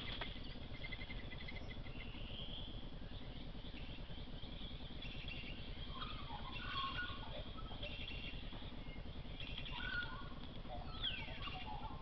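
Birds calling in the background: scattered faint chirps and short phrases of jumping notes, busiest around the middle and again near the end, with one falling whistle late on, over a steady low hiss.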